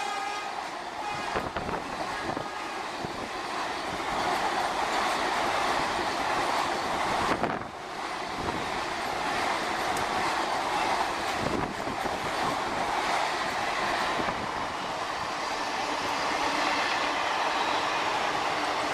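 Express trains hauled by electric locomotives passing at speed: a continuous rush of coaches and wheels on the rails, with occasional sharp clacks over rail joints.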